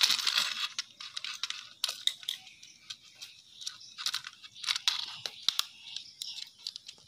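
Hands handling a plastic switch board and its wires: irregular rustling and scraping with small clicks, loudest in the first second.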